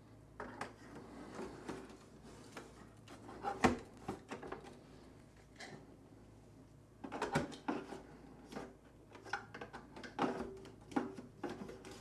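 Hard-drive trays being slid into the drive bays of a Synology DS918+ NAS: scattered light plastic clicks and knocks as the caddies are pushed in, the sharpest knock about four seconds in and a cluster of clicks around seven seconds.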